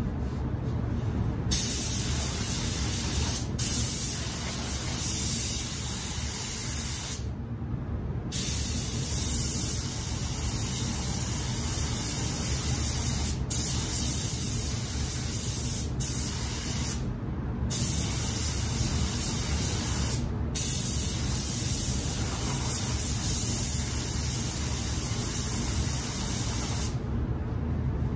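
Compressed-air paint spray gun hissing as it lays down a coat of sealer. It stops for several short pauses, the longest about a second, over a steady low rumble.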